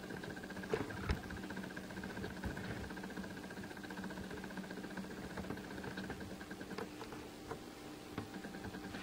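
A steady low hum from a running appliance, with a few faint clicks and taps; the hum fades out about seven seconds in.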